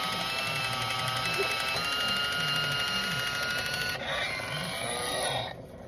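Battery-powered hands-free can opener running around the rim of a can, a steady motor whine that shifts in tone about four seconds in and stops near the end.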